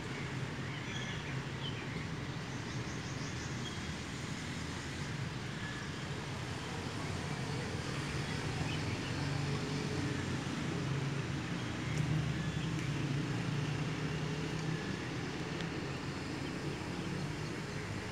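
Steady outdoor background noise with a low rumble, a little louder in the middle, and a few faint high chirps.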